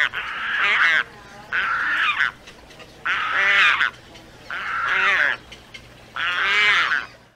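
Pelican calling: five calls in a row, each under a second long, about one every second and a half.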